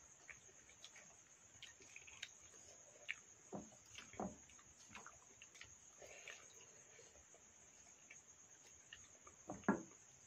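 Steady high-pitched chirring of crickets, with scattered soft eating noises from people eating rice with their hands out of steel bowls. The loudest of these come about four seconds in and again near the end.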